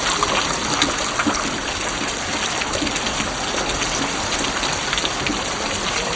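Monsoon rain falling steadily, an even hiss with scattered drops ticking on surfaces.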